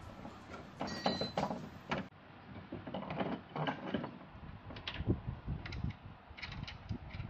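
A string of irregular scrapes and knocks as a Mazda Premacy front strut assembly is worked up into the strut tower, its top mounting and studs rubbing against the tower's sheet metal as they come through the holes.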